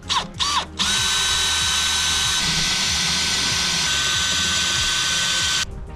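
Makita 18V cordless drill running steadily with a constant whine as it drills out a shear-head (break-off) security bolt holding the factory ECU. It starts just under a second in and stops suddenly near the end.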